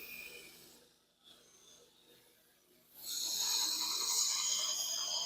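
Abrasive rasping of sanding on the steel blade of a horseshoe knife: the scraping fades out within the first second, pauses for about two seconds, then starts again loudly about three seconds in.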